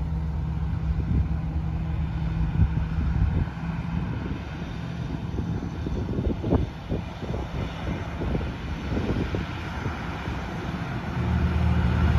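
Diesel cane-train locomotive approaching with a steady low engine drone. The drone weakens a few seconds in and comes back louder near the end as the locomotive draws nearer. Irregular low thumps are heard in between.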